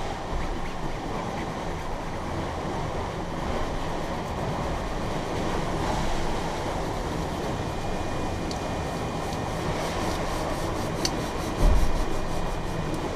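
Steady rushing rumble of a sailboat underway, water moving past the hull, with a few light clicks and a single thump near the end.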